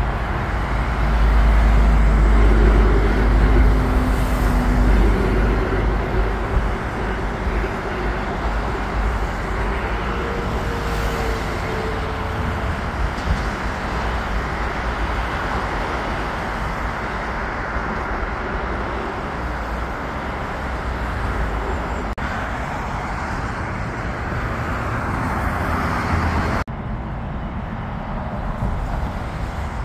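Steady hum of city road traffic, with a heavier low rumble in the first few seconds and a small drop in level near the end.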